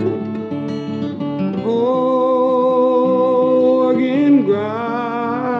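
Folk ballad: an acoustic guitar strumming, joined about two seconds in by a singing voice holding a long note with vibrato, which slides to a new note near the end.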